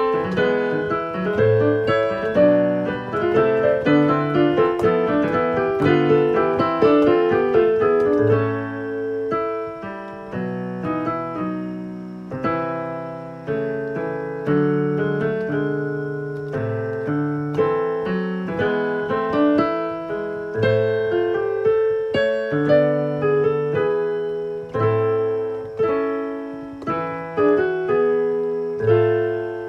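Digital piano played from sheet music: a melody in several voices over slow bass notes, busier for the first few seconds and slower and sparser from about eight seconds in.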